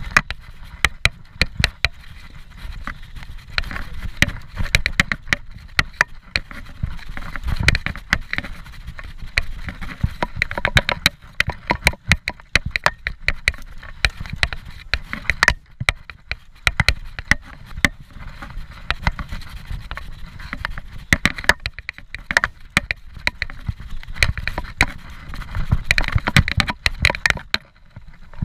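Scott Genius 740 full-suspension mountain bike ridden fast down a rough dirt trail: a constant clatter of sharp rattles and knocks from the bike and its handlebar mount over the bumps, over a steady low rumble of tyres on dirt.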